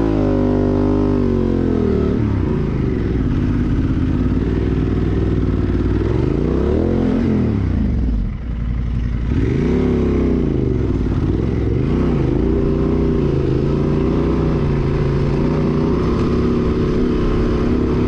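Honda Transalp XL750's parallel-twin engine through a Mivv Dakar exhaust, revved up and down again and again as the throttle is worked, dropping away briefly about eight seconds in and held fairly steady near the end.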